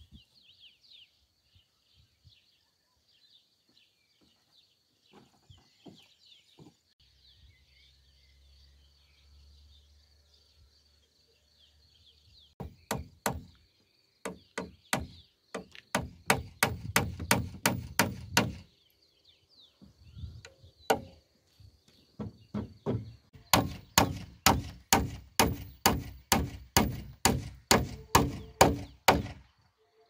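Hammer driving nails into the pine post and frame of a wooden window. First a few scattered blows, then quick runs of strikes, ending in a steady series of about three blows a second. Faint birds chirp during the quiet first half.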